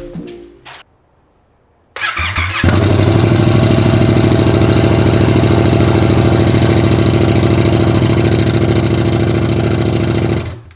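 Yamaha MT-07's parallel-twin engine is cranked on the starter about two seconds in, catches, and idles steadily, then is shut off near the end. It is running on bare new headers with no mid-pipe or muffler fitted, a brief run to check the header gaskets for leaks.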